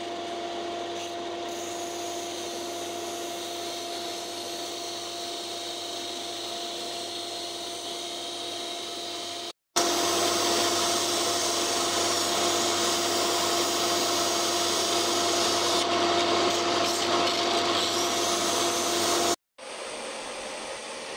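Bench disc sander running, with a small wooden lure body pressed against the disc and ground to shape: a steady motor hum under the rasp of wood on the abrasive. The sound cuts out briefly about ten seconds in and comes back louder, then near the end gives way to a quieter steady noise.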